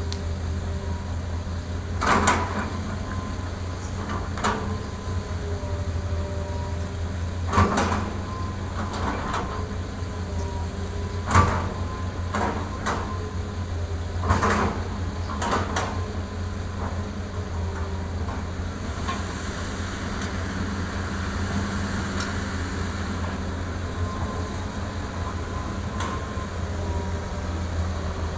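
Hitachi ZX200 excavator's diesel engine running steadily under load, with a series of knocks and clatters as bucket loads of dirt and rocks drop into a steel dump-truck bed, and a longer hiss of spilling dirt in the second half.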